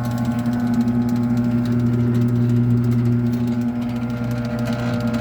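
Garage door opener motor running with a steady electric hum.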